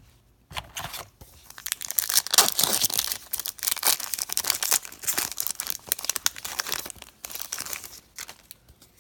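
Trading card pack wrapper being torn open and crinkled, a dense run of crackling and tearing lasting about eight seconds.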